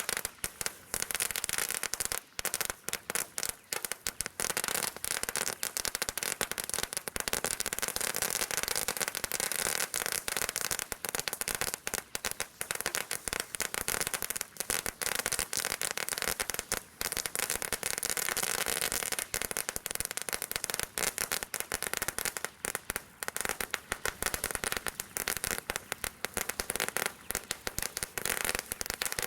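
'Celebration Cracker Large' firework crackling continuously: a dense, unbroken stream of rapid sharp cracks with no pauses.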